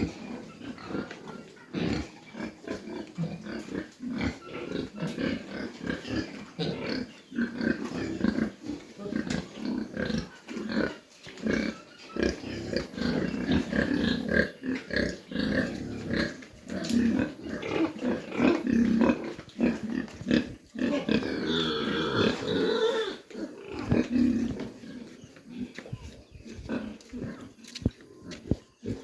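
Pigs grunting continually in short, irregular bursts, with a higher-pitched squealing call about three quarters of the way through.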